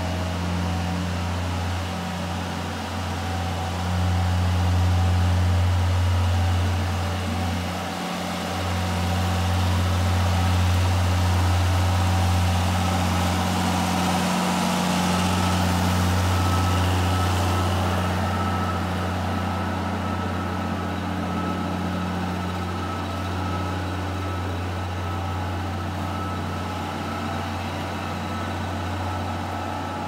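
John Deere tractor's diesel engine running at a steady speed as it drives a feed mixer wagon along the feed alley. It makes a steady low hum that swells as the tractor comes close, and a hiss rises around the middle as it passes by.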